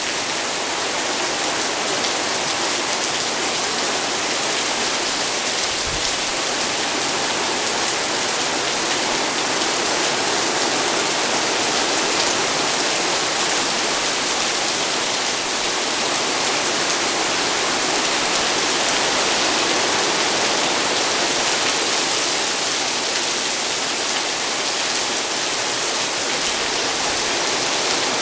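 Heavy rain pouring down steadily, with one brief low thump about six seconds in.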